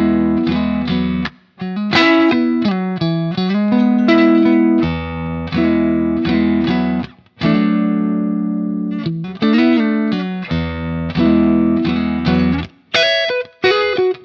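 Electric guitar played through a J. Rockett Jeff Archer Klon-type overdrive pedal: a phrase of picked single notes and chords, some left ringing. The playing breaks off briefly about a second and a half in and again about seven seconds in.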